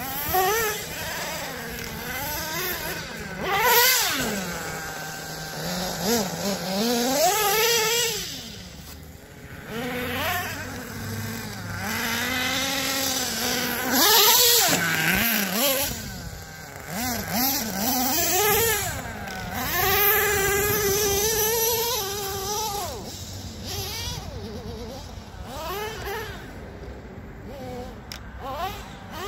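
Redcat Earthquake 3.5 RC monster truck's small nitro two-stroke engine revving up and down again and again as it is driven, its pitch repeatedly rising and falling. It is still cutting out a little under throttle, which the driver puts down to the engine needing another tuning adjustment.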